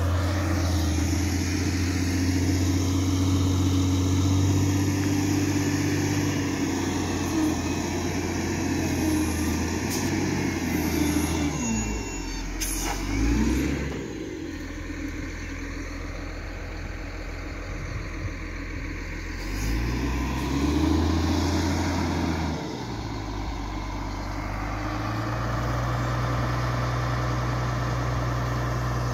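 Wheel loader's diesel engine running as it works moving fill dirt, its engine speed dropping and climbing back up twice, about twelve seconds in and again around twenty seconds, then holding steadier and a little higher near the end.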